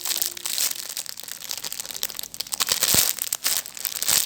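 Plastic crinkling and rustling in an irregular run of small crackles, with a couple of sharper knocks, as a packaged squishy toy is handled.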